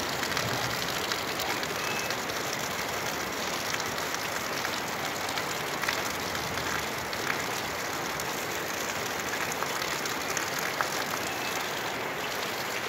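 Heavy rain from a storm falling steadily: a dense, even hiss with scattered sharper ticks of drops striking nearby surfaces.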